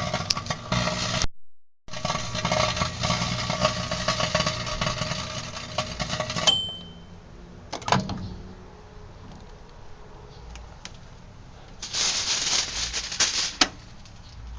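Microwave oven running with a steady hum and crackling, cutting off with a single short beep about six and a half seconds in. A click follows soon after, then a brief rustling noise near the end.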